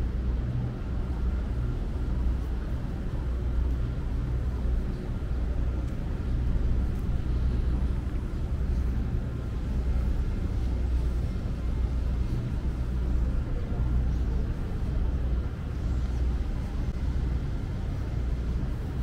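Downtown street ambience: a steady low rumble of traffic that swells and eases every second or two, with a faint steady hum above it.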